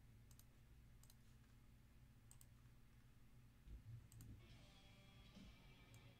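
Near silence: room tone with a few faint, scattered clicks and a brief faint rustle about two thirds of the way through.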